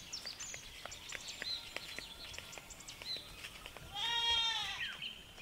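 A goat bleating once, a single call of just under a second about four seconds in, with scattered faint ticks and small high chirps before it.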